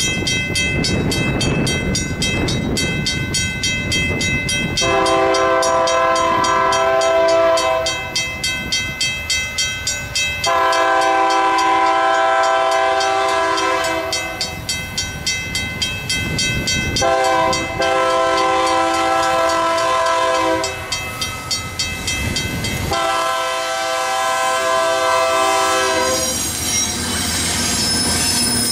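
Freight locomotive air horn sounding its grade-crossing signal as a chord of several notes in four blasts, over the steady fast ringing of a mechanical crossing bell, about three strikes a second. Near the end the locomotive reaches the crossing and the rumble of the train and its wheels takes over.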